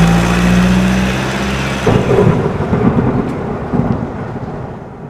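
Thunder and rain sound effect: a deep rumble, then a crackling thunderclap about two seconds in that slowly dies away, over a steady hiss of rain.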